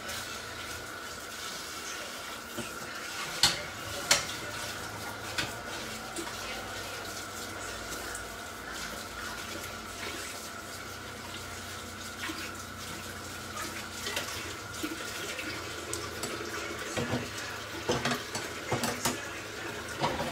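Tomato and seafood sauce simmering hard in a pan on a high induction ring: a steady bubbling hiss, with a faint steady whine under it. A couple of sharp clinks of dishes or utensils come about three and a half and four seconds in, and a flurry of clinks near the end.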